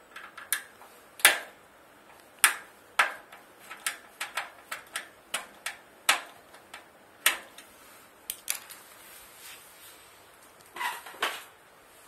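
Irregular sharp clicks and taps of a screwdriver and small screws on a microwave oven's sheet-metal back casing as the cover screws are taken out, with a short cluster of clicks near the end.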